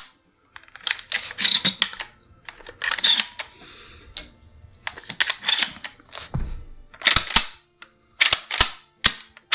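Dummy 12-gauge shells being pushed into a semi-automatic shotgun's magazine tube through the loading port: a series of sharp metallic clicks and clacks, several in quick pairs, as each shell goes in past the shell latch.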